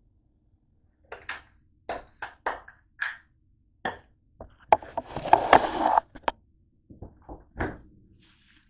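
Kitchen handling sounds: a string of sharp knocks and clatters from objects being moved about on a counter, with a denser rustling clatter a little over a second long about five seconds in, the loudest part.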